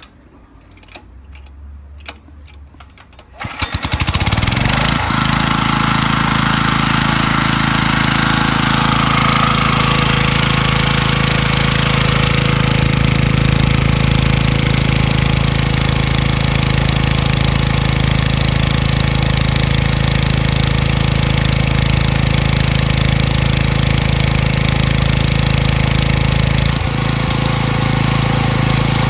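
Robin EY20 single-cylinder petrol engine of an Iwata SUE-222P air compressor being pull-started: a few clicks, then it catches about three and a half seconds in and runs steadily, driving the V-twin compressor pump as the tank pressure climbs. Near the end the running sound drops slightly and changes in tone.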